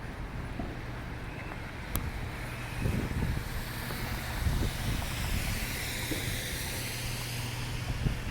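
Downtown street traffic in falling snow: a steady low engine hum, with a vehicle's tyre hiss building and fading between about four and eight seconds in. A few low thumps come in the middle.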